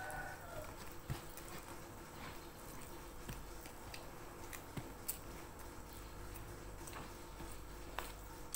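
Close-up eating by hand: chewing with scattered sharp mouth clicks and smacks, and fingers pressing and gathering rice on a paper food wrapper.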